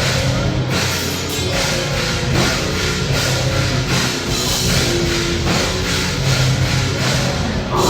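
Loud heavy rock music with a steady, driving drum beat.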